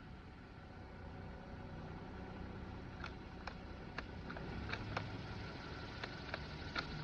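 Light metallic clicks, about nine of them from roughly three seconds in, plausibly the bolt of a Ruger Precision .22 LR rifle being worked against a spent case stuck tight in the chamber. A steady low hum runs underneath.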